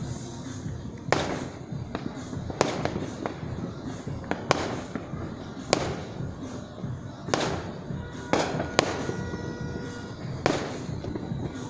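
Aerial fireworks bursting overhead: about ten sharp bangs at irregular intervals, each trailing off in a short echo.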